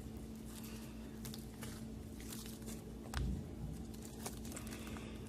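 Homemade glue-and-boric-acid slime being kneaded by hand, giving faint, irregular sticky clicks and squelches. The slime is not yet fully set and is still sticking to the hand.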